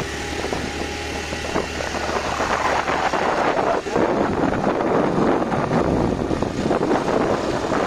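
Motorcycle engine pulling hard in first gear up a steep dirt climb, straining, as the bike barely manages the slope. From about three seconds in, a louder rushing noise of wind on the microphone joins it.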